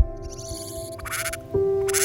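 Background music with sustained notes and a low thud at the start. About a second in and again near the end come short harsh, raspy calls that fit Himalayan bulbul chicks calling.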